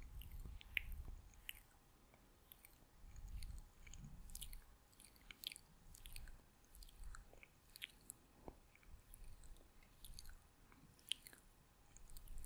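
ASMR mouth sounds close to the microphone: soft, wet lip and tongue clicks and smacks, coming irregularly several times a second.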